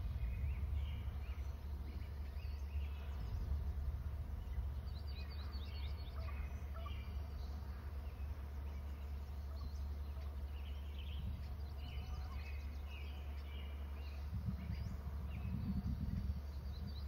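Small birds calling outdoors: many short high chirps and quick trills, some in rapid runs, over a steady low background rumble.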